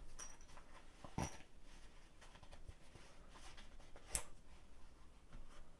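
Faint rustling and handling of a package being opened, with two sharp clicks, one about a second in and another about four seconds in.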